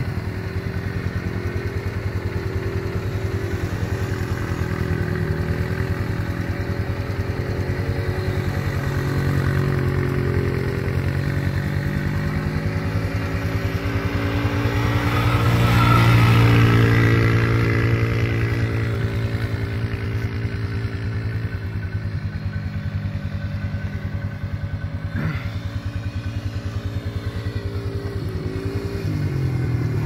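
2018 Polaris Phoenix 200 ATV's single-cylinder four-stroke engine running as it is ridden, its pitch rising and falling with the throttle, loudest about halfway through as it passes close. It runs cleanly, its carburetor needle clip moved to a leaner setting to cure the bogging and flooding.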